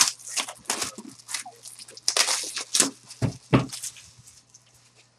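Plastic shrink wrap being torn and crinkled off a sealed trading-card box, in quick irregular rustles. Two dull thumps a little past three seconds in, and the rustling dies down near the end.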